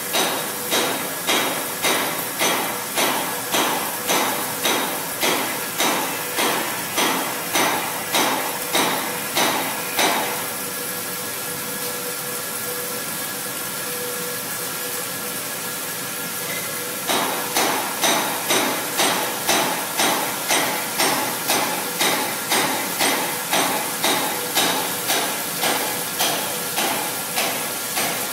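3/8-inch four-flute rougher-finisher end mill slotting P20 steel full-width in a CNC mill under flood coolant: a steady hiss of cutting and coolant. Over it comes a sharp, even knock about twice a second, which stops for about seven seconds midway and then starts again.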